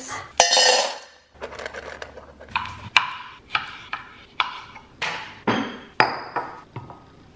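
A brief clatter near the start, then a kitchen knife slicing an orange into wedges on a wooden cutting board: a sharp knock with a short ring about twice a second.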